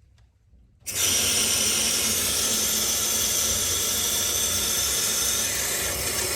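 Water rushing through the main shutoff valve and supply pipes as the main is turned back on, a steady loud hiss that starts suddenly about a second in: the repaired line refilling and pressurising.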